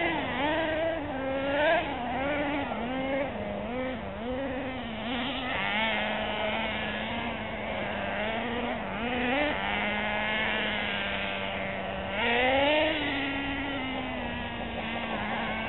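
Small engines of radio-controlled off-road cars racing, several at once, their pitch rising and falling quickly as the cars accelerate and back off. The pitch holds steadier through the middle, then climbs sharply about twelve seconds in.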